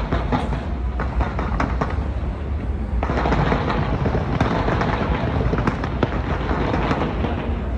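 Fireworks display going off: a rapid run of bangs and cracks, turning into a dense, continuous crackle from about three seconds in.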